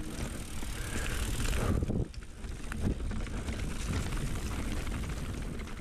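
Mountain bike being ridden over a dirt trail: a steady rumble of tyres on the ground, with the rattle and clicks of the bike over roots and bumps.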